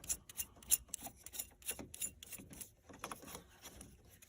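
Light irregular clicks, taps and scrapes, several a second, of truck door lock hardware being handled and pushed back into place by hand.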